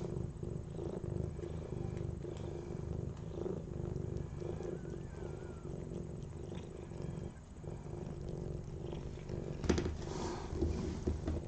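Calico mother cat purring steadily as she licks clean a newborn kitten just after giving birth, with a brief sharp knock about ten seconds in.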